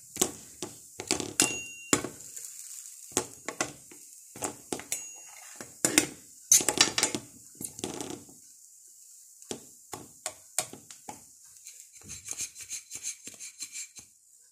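A metal slotted spatula clattering, tapping and scraping against small frying pans, with pans knocked about on a glass-ceramic hob. There is a brief metallic ring early on and a run of quick light taps near the end.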